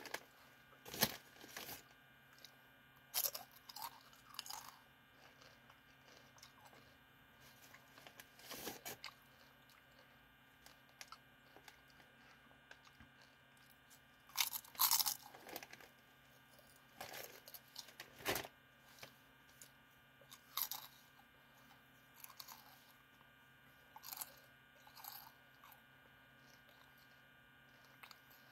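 Crispy potato chips being bitten and chewed: scattered crunches with quiet pauses between, the loudest about fifteen and eighteen seconds in.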